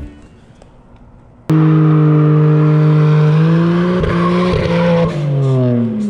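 BMW 335xi's N54 twin-turbo inline-six held at high, steady revs. It starts abruptly about a second and a half in, climbs a little mid-way, then the revs fall away near the end, over a hiss of spinning, squealing tyres during a burnout.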